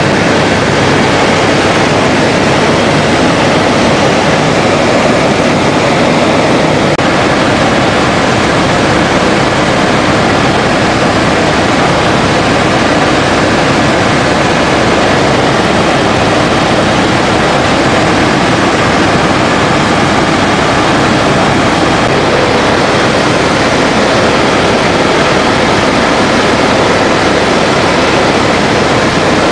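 Loud, steady helicopter cabin noise: engine and rotor running at a constant pace in flight, heard from inside the cabin.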